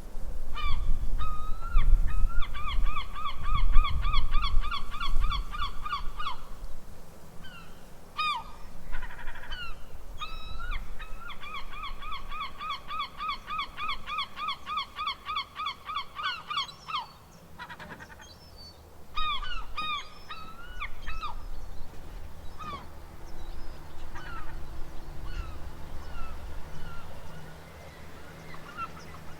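Seagulls calling: two long runs of rapid, repeated yelping calls, about five a second, with scattered single cries between them and after, over a low rumble.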